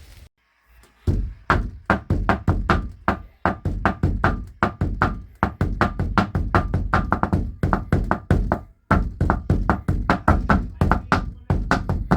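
Improvised drumming on an everyday object: a fast, steady run of sharp knocks, several a second, each with a short ring, starting about a second in after a brief silence.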